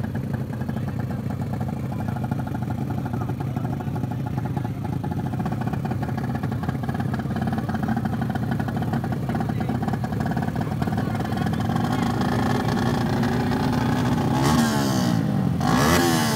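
Race-tuned four-stroke motorcycle engine running at a fast, steady idle, its note slowly climbing; about two seconds before the end the rider blips the throttle several times, sharply revving it up and letting it drop.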